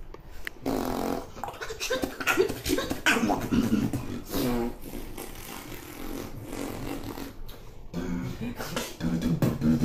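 Beatboxing: a person making drum and bass sounds with the mouth, pitched vocal sounds broken up by sharp percussive hits.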